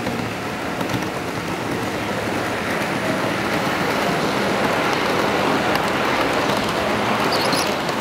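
HO scale model passenger train running past close by: the rolling noise of its wheels on the track, growing louder about halfway through as the cars go by.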